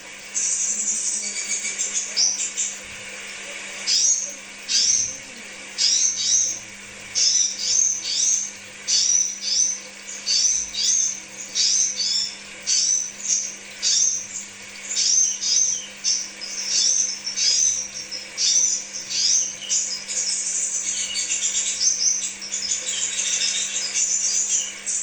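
Crimson sunbird singing: quick bursts of short, sharp, high chirps, one or two bursts a second, running together into a continuous high twittering near the end. A faint steady hum lies underneath.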